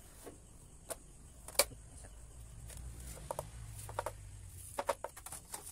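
Scattered light clicks and taps from handling a metal body-filler spreader at a bus body panel, over a faint low hum. There is one sharper click about a second and a half in, and a run of small taps near the end.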